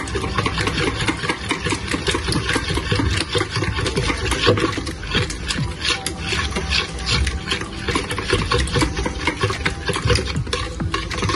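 Whisk beaten rapidly round a bowl of milk, sugar and margarine: a fast, continuous clicking and scraping of the wires against the bowl.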